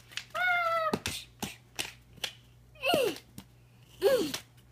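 A young girl's high-pitched voice cries out three times: a held squeal in the first second, then two short wails that fall in pitch about three and four seconds in, play-acted cries for dolls that are fighting. Light clicks and knocks of plastic dolls being handled come between the cries.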